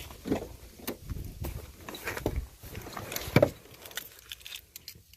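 Scattered clicks, knocks and rustling from hands and movement, with one sharp knock about three and a half seconds in.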